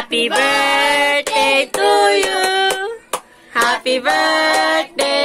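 A young boy singing in phrases with long held notes, with a woman's voice singing along.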